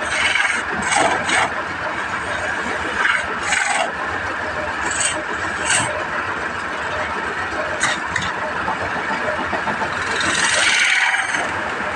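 Wood lathe running steadily while a hand-held turning chisel takes short scraping cuts on the spinning wood, with a longer continuous cut near the end.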